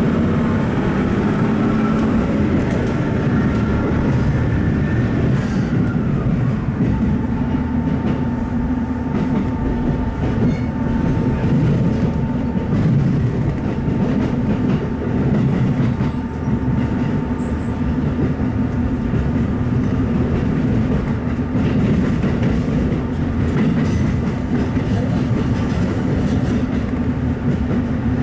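KiHa E130 diesel railcar running under power, its engine's steady drone heard from inside the car with the clatter of wheels over rail joints. A higher tone drops in pitch about five to seven seconds in and then holds steady.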